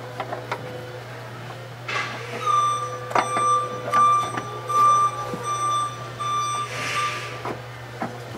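Clicks and light knocks of a clutch master cylinder being worked by hand into place through the firewall, over a steady hum. From about two and a half seconds in, a steady high-pitched tone sounds for about four seconds, breaking off now and then.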